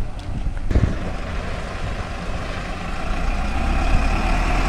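Diesel school bus engine running as the bus pulls away and drives past, getting louder in the second half. A single sharp knock is heard about a second in.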